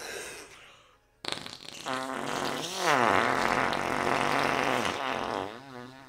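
Fake fart noise blown with the mouth and hands pressed to the face. After a short trailing sound and a brief pause, one long, drawn-out raspy fart starts about a second in and lasts about four seconds, its pitch dipping and rising again partway through.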